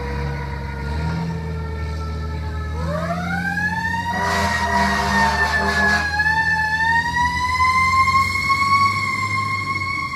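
Fire engine siren wailing as the truck pulls away: the pitch sinks slowly, then climbs steeply about three seconds in and holds high, rising gently again near the end. A harsh horn blast lasts about two seconds in the middle, over the low rumble of the truck's engine.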